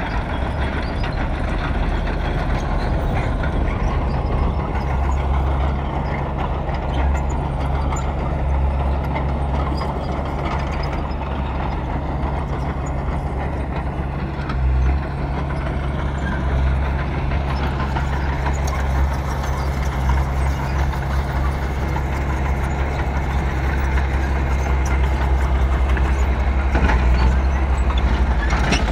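Bulldozer's diesel engine running steadily as it works soil, getting a little louder near the end.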